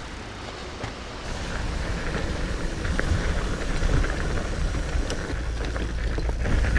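A mountain bike rolling along a dirt trail: wind buffeting the camera microphone over a low rumble, with scattered clicks and rattles from the tyres and bike. It grows louder over the first few seconds.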